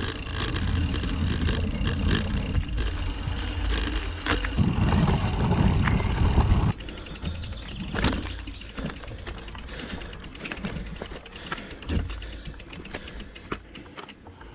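2018 Specialized Chisel mountain bike ridden, heard from a handlebar-mounted camera: a loud rumble of tyres on paving with a dense run of rattles, then, after a sudden drop in level about seven seconds in, quieter rolling on a dirt forest track with scattered clicks and rattles of the bike.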